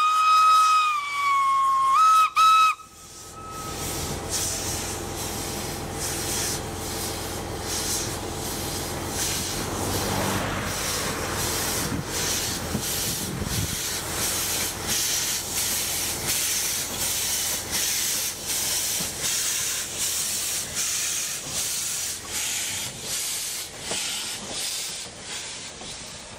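Steam whistle of a 1945 Franco-Belge 040 narrow-gauge steam locomotive, a long blast that steps up in pitch and ends in two short toots a few seconds in. The engine then works past with a steady beat of exhaust chuffs over a hiss of steam.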